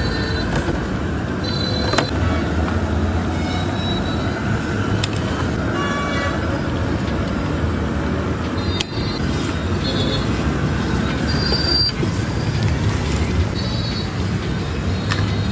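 Street traffic: a steady rumble of engines with short vehicle horn toots here and there.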